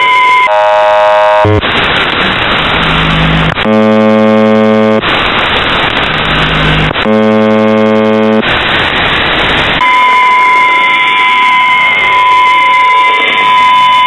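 A shortwave radio signal on 4614 kHz heard through a receiver: static with a steady whistle-like tone, broken by three harsh buzzes about a second and a half long, each followed by a burst of rushing noise. About ten seconds in, the steady tone and static return.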